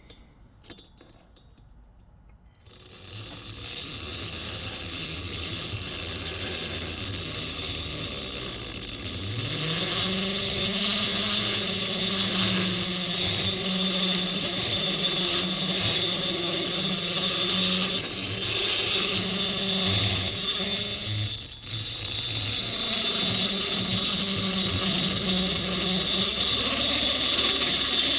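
Air-powered die grinder running, grinding the transfer port edges of a chainsaw cylinder to taper and bevel them. It starts about three seconds in with a hiss, its pitch rises and steadies about nine seconds in, and it dips briefly about two-thirds of the way through.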